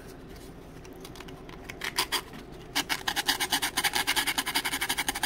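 Small hand file rasping a slot in a thin laser-cut wooden kit part. After a couple of single strokes, fast, even back-and-forth strokes start a little under three seconds in, about nine a second. The slot is being eased so that a bulkhead fits snugly without marking the frame.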